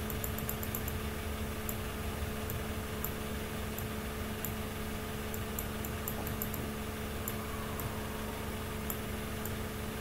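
Steady low electrical hum with faint, irregular ticking of a computer mouse scroll wheel.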